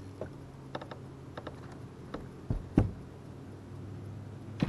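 Light clicks and taps of gear being handled on a bass boat's deck. About two and a half seconds in come two heavy low thumps as the angler drops to his knees on the deck, and one more sharp click near the end. A steady low hum runs underneath.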